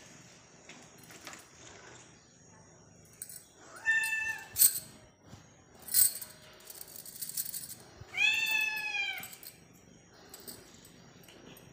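Kitten meowing twice: a short high call about four seconds in, then a longer meow of about a second that rises and falls, near eight seconds in. Two sharp knocks fall between the meows.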